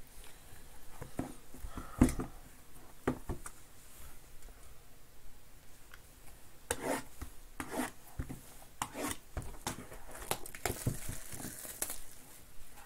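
Cardboard trading-card boxes (Panini Impeccable Basketball) being handled and set out on a table: irregular knocks, rubbing and sliding of cardboard, with one sharp knock about two seconds in.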